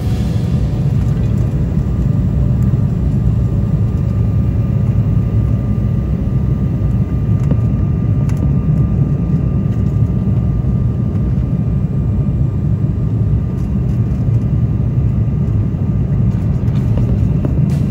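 Airliner cabin noise in flight: a steady low rumble of engines and airflow that holds unchanged, with a faint thin whine above it.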